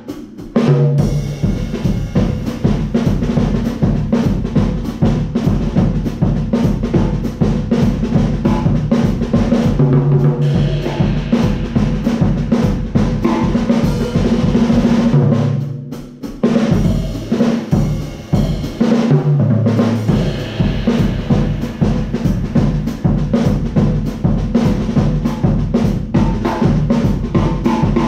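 Acoustic drum kit played in a steady groove on bass drum, snare and cymbals, with a short break near the start and another about halfway through.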